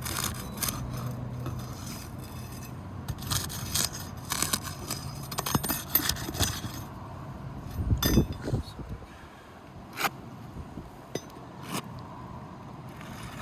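Intermittent scraping and small metallic clinks of hand tools working under a roof shingle to loosen it, with a louder dull knock about eight seconds in.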